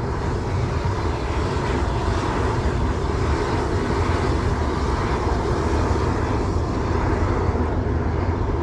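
Steam roaring steadily out of a geyser vent in a geothermal field: a continuous hiss with a deep rumble underneath.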